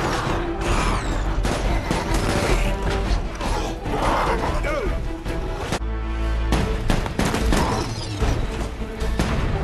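Film action-scene mix: repeated gunshots, bullet impacts and booms over background score music, with a brief low rumble a little past the middle.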